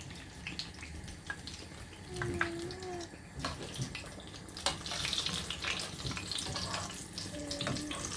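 Kitchen sounds: scattered light clinks and knocks, with a hiss that builds about five seconds in.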